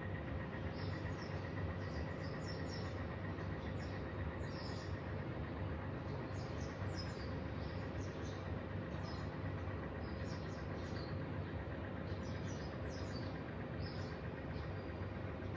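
Small birds chirping, many short high calls scattered throughout, over a steady low rumble of background noise with a faint constant hum.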